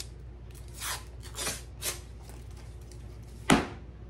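Paper label being peeled off a cardboard tube of refrigerated crescent dough, in a few soft tearing swishes, then a sharp pop near the end as the pressurised tube bursts open along its seam.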